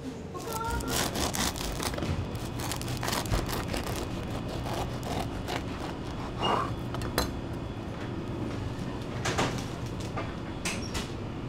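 Bakery kitchen work noise: scattered clicks and knocks of tools and trays over a steady low hum of equipment.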